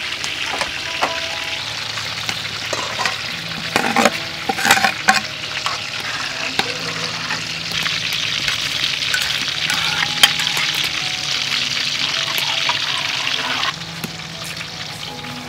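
Water in an aluminium pot bubbling on the boil with a steady hiss. About four seconds in, white corn kernels are poured in from a basket with a short clatter and splash. The hiss drops quieter near the end.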